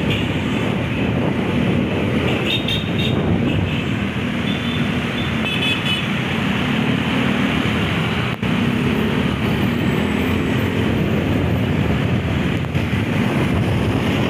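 Road traffic noise from inside slow, dense city traffic of cars and motorbikes on a wet road, with a steady engine hum. Short horn toots come a few seconds in and again around six seconds.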